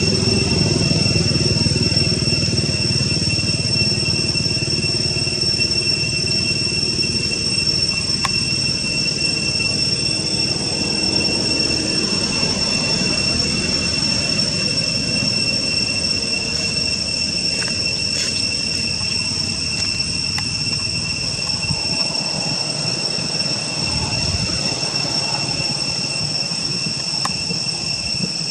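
Insects droning with a steady, high-pitched, unbroken two-tone buzz, over a low rumbling background that fades about three quarters of the way through.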